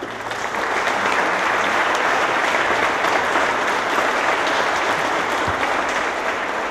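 Applause from the assembled members of parliament: dense, steady clapping that builds over the first second and eases slightly near the end.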